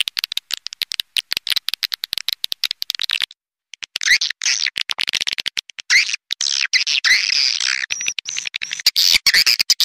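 Recorded edible-nest swiftlet calls, a swiftlet-house lure call: rapid dry clicking chatter, then twittering with quick rising and falling chirps, broken by a short pause about three seconds in.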